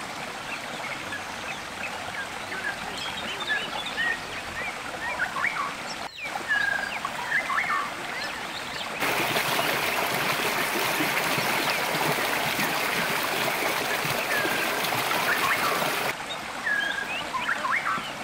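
River water running over rocks, with scattered short high-pitched blips over it. From about nine seconds in to about sixteen seconds it becomes a louder, even rush of water spilling down a small cascade between boulders, then drops back to the quieter flow.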